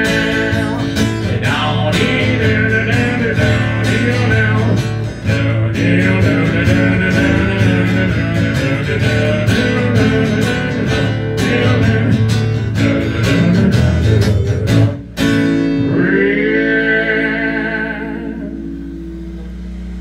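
Country-blues song played on strummed guitar with some singing, ending about 15 seconds in on a final chord that rings out and fades. A steady low hum is left near the end.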